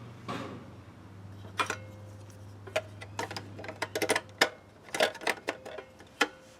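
A string of irregular sharp clicks and light metallic clacks from handling the air conditioner's metal disconnect box, over a low steady hum that stops about four and a half seconds in.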